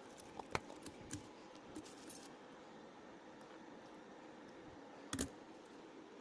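A few light clicks and knocks of things being handled, with one louder knock about five seconds in, over a faint steady background.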